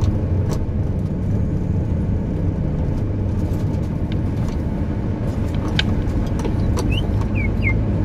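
Car driving on an unpaved dirt road: a steady low engine and road rumble with a few sharp knocks. Three or four short high chirps come near the end.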